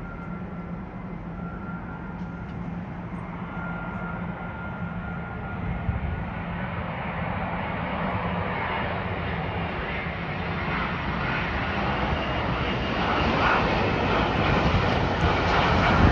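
Twin jet engines of a British Airways Boeing 777-200 on final approach with gear down, a steady jet rumble growing louder as the airliner comes closer. A thin high whine sits over it for the first few seconds.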